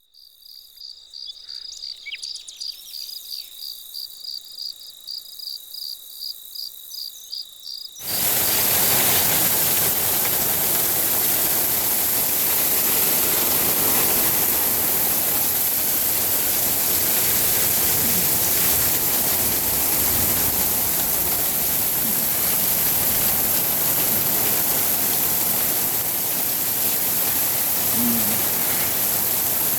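An insect chirps in a high pulsing trill, about three or four pulses a second. About eight seconds in it gives way abruptly to a heavy downpour: a loud, dense, steady hiss of rain.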